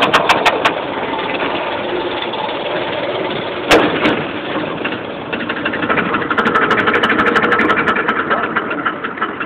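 Roller coaster train running on its track: a loud, steady rumble and rattle, with a sharp knock a little under four seconds in and a faster, denser clatter from about halfway.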